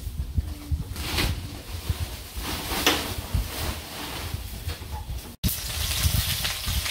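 Crinkling rustle of a large woven plastic sack being handled and spread open. After a cut about five seconds in, a steady hiss of hot oil in a wok over a wood fire, with a low rumble underneath throughout.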